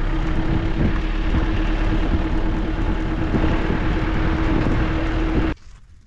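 Truck driving slowly on a dirt track: a steady engine drone under loud road and wind noise through the open driver's window. It cuts off abruptly about five and a half seconds in, leaving much quieter outdoor sound with a few faint ticks.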